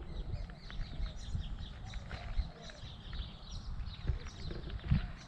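Small birds chirping repeatedly, with a low wind rumble on the microphone underneath.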